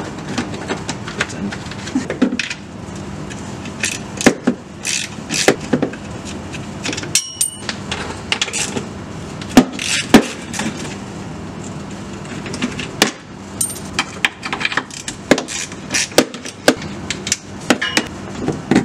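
Hand ratchet with a 10 mm socket undoing the heat shield nuts under a car: irregular sharp clicks and metallic clinks and knocks.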